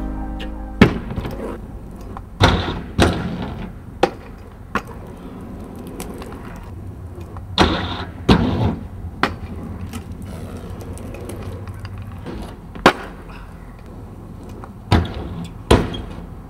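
Kick scooter riding on a skatepark: wheels rolling on asphalt, with sharp clacks and grinding scrapes as the deck and wheels land on and slide along the metal edge of a box, about a dozen impacts spaced a second or more apart.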